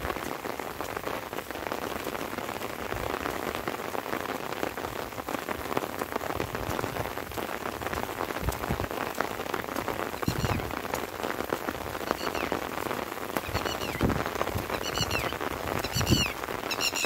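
Light rain falling steadily, with many sharp drop ticks close by. About ten seconds in, some small creature starts calling in short repeated chirps, with a few low thuds among them.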